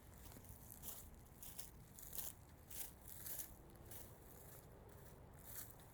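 Faint footsteps of boots crunching on dry ground at a steady walking pace.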